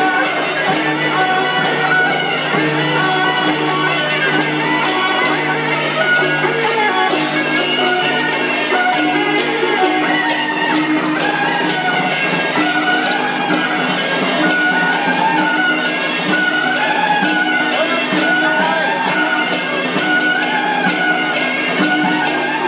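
Loud traditional temple festival music: held melodic tones over a fast, steady percussion beat that runs without a break.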